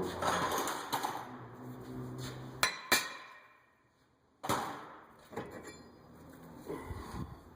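Hammer striking a Subaru Outback's front brake rotor to knock it off the hub where it is stuck: a series of sharp metallic hits a second or so apart, with a short pause midway.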